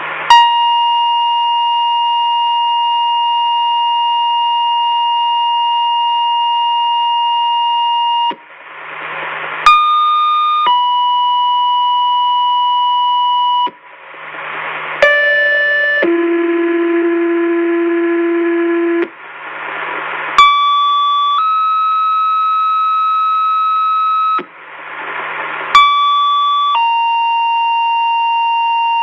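Fire pager tones received on a police scanner: one steady tone held about eight seconds, then four two-tone sequential pages, each a short tone of about a second followed by a different tone held about three seconds. Each pair has its own pitches, and a short burst of radio hiss comes before each page.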